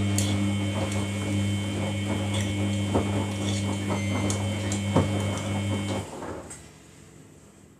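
Samsung front-loading washing machine on its final rinse: a steady electrical hum with scattered clicks, cutting off about six seconds in.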